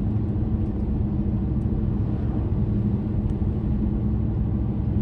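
Road and engine noise inside a car driving along a highway: a steady low drone with no change in pace.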